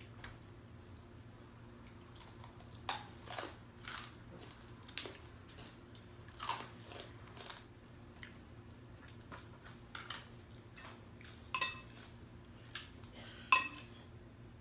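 People eating noodle soup: chewing and crunching, with scattered sharp clicks and a few short ringing clinks of spoons and chopsticks against ceramic bowls, the loudest clink near the end.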